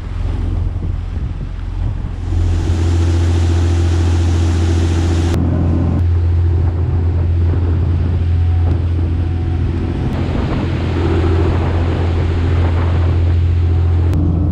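Engine of a fishing boat under way running with a steady low drone, with water rushing past the hull and wind buffeting the microphone; the rush grows louder about two seconds in.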